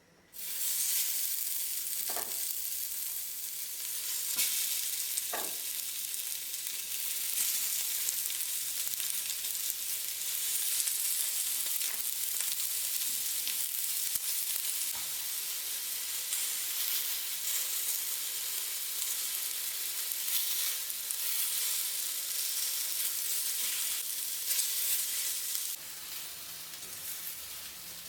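Food sizzling as it fries in a pan, a steady hiss that comes in suddenly and eases off near the end.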